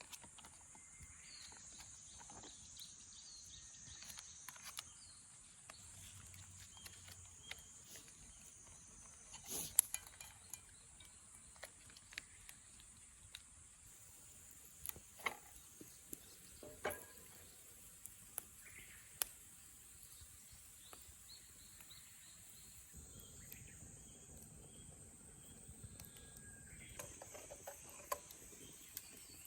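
Quiet outdoor ambience: a steady high-pitched insect drone, with scattered light clicks and knocks.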